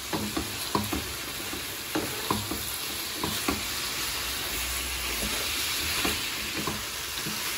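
Chicken breast pieces sizzling as they fry on high heat, their own juices cooked off, for browning. A steady sizzle with short knocks scattered through it as they are stirred with a spatula.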